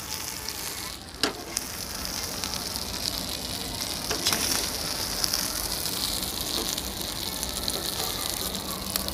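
Masala-coated snakehead fish pieces and roe sizzling in mustard oil on a flat tawa, a steady high hiss. A metal spatula clicks against the pan a few times, the clearest about a second in and again about four seconds in.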